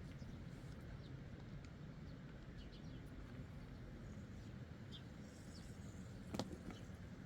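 Quiet outdoor ambience: a steady low rumble with a few faint short chirps and one sharp click about six seconds in.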